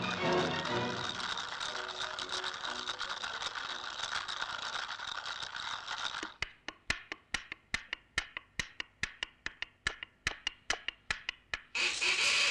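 Cartoon sound effects: a dense rattling, scratchy noise for about six seconds. Then an even run of sharp ticks, about five a second, for the cycling bicycle. A louder hiss sets in suddenly near the end.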